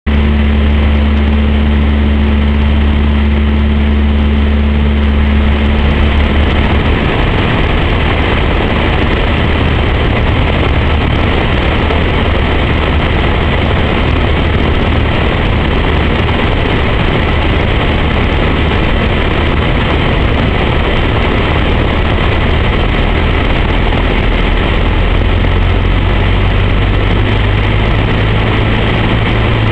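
Cessna 152's four-cylinder Lycoming engine and propeller heard from inside the cabin in flight, a loud steady drone. Its low note shifts about seven seconds in and rises slightly near the end, as the power setting changes on approach.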